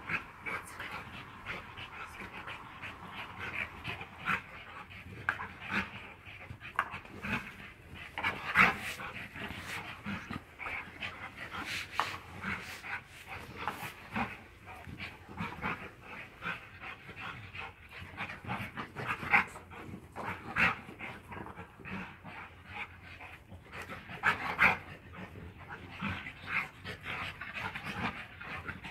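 Dogs, an American Staffordshire terrier and a French bulldog, panting fast and hard as they play, with a few louder short sounds scattered through.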